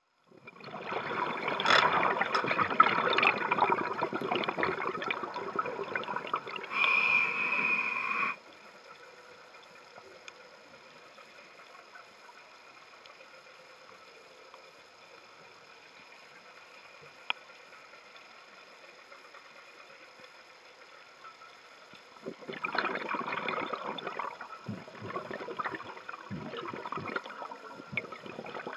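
Scuba diver's exhaled bubbles rushing and gurgling from the regulator, heard close up through a mask-mounted camera. A long spell of bubbling at the start ends in a brief steadier hiss. After a long quiet stretch, the bubbling starts again and runs on in broken bursts near the end.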